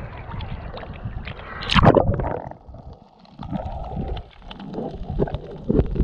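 Sea water sloshing and splashing against a GoPro's waterproof housing as it bobs at the surface, with one loud splash nearly two seconds in. The sound then turns muffled and gurgling as the camera dips under the water.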